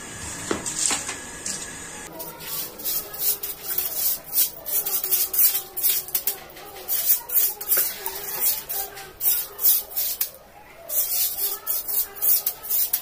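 Stiff stick broom scrubbing a wet tiled floor, with water splashed from a mug, in quick repeated swishing strokes about two or three a second. The strokes start about two seconds in and pause briefly near the end.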